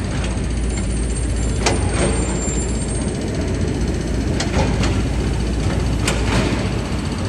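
Busy city street ambience: a steady low rumble of traffic, with a few short sharp clicks and knocks scattered through it.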